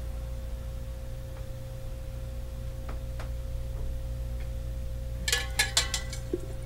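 A stacked steel dhokla-mould stand and its lid clinking against a stainless steel steamer pot as they are set in place: a few faint ticks, then a quick run of sharp metal clinks near the end, over a steady low hum.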